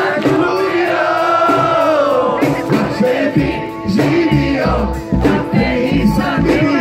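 Male vocalist singing live into a handheld microphone through a PA over amplified band accompaniment, with low bass notes joining about halfway through.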